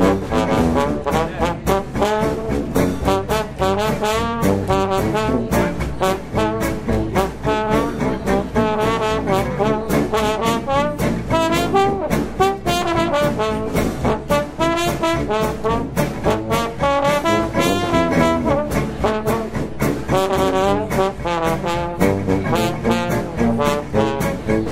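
Background music: upbeat jazzy brass, with trombone and trumpet lines over a steady beat.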